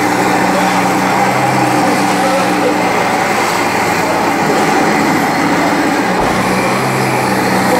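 1:16 scale radio-controlled tank models, a T-34/85 among them, driving over sand: a steady, engine-like running noise from the models.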